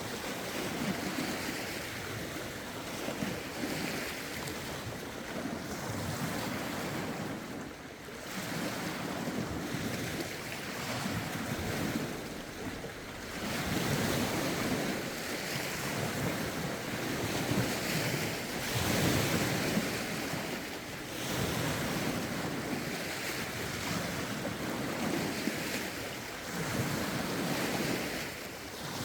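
Lake waves lapping and washing ashore in surges every few seconds, driven by a rough wind, with wind buffeting the phone's microphone.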